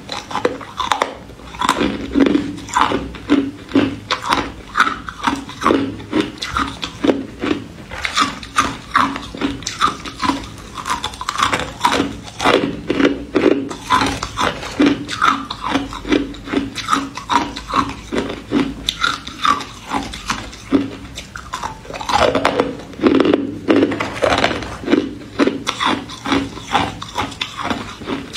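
A person chewing and crunching ice close to the microphone, about two crunches a second in a steady rhythm, with a louder, denser stretch a little past the middle.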